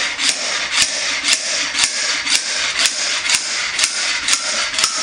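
Snap-on slide hammer on a blind-hole bearing puller, its weight striking the stop in a steady series of sharp metal knocks, about two a second, with a scraping sound between blows. It is pulling a needle bearing out of the blind bore in a 1953–62 Corvette steering gearbox side cover.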